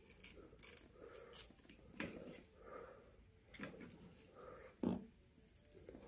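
Flathead screwdriver prying at a bicycle handlebar's bar-end plug: faint, scattered scrapes and clicks of the metal tip working the plug loose.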